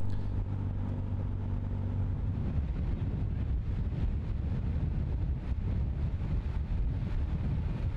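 Moving vehicle's engine running with rushing wind. A steady low hum for the first two and a half seconds gives way to a rougher low rumble.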